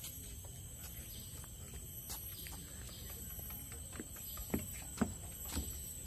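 Footsteps on a boardwalk deck, short knocks about two a second, clearer in the second half, over steady outdoor background noise.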